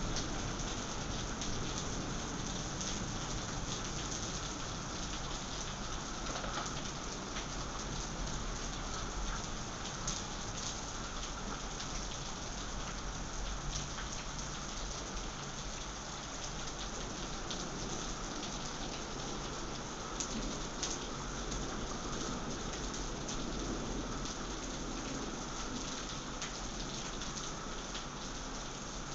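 Heavy rain falling steadily in a thunderstorm, an even hiss with a few sharp drip ticks.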